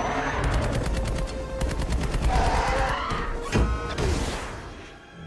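Rapid automatic fire, most likely fighter-jet cannon, over an orchestral film score. A couple of heavier hits come past the middle, and the mix fades near the end.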